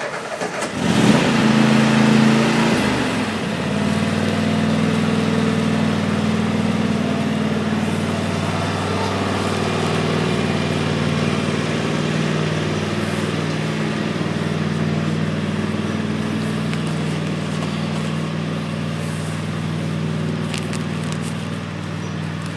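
An engine starts about a second in, revs briefly, then settles into steady idling.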